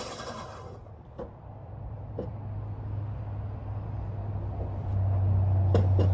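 A low, steady engine hum that gets louder about five seconds in, with a few faint clicks over it.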